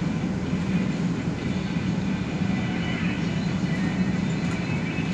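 Inside a moving city express bus: steady engine and road noise with a constant low hum.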